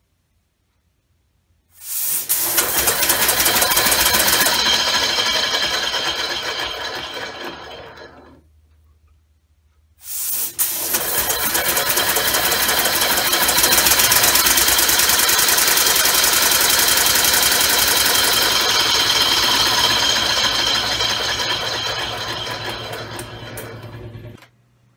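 Homemade oval compressed-air motor, two combined cylinder-valve units driving a rotor inside a steel oval ring, running with a fast, even clatter. It starts about two seconds in and winds down to a stop about eight seconds in, then starts again about ten seconds in, runs steadily and dies away near the end.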